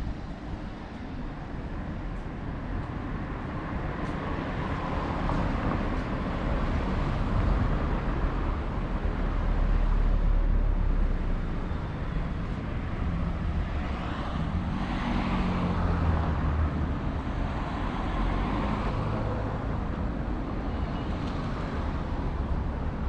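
Road traffic on a city street: a steady rumble of cars going by, swelling as vehicles pass, with one engine note rising and falling as a vehicle drives past a little past the middle.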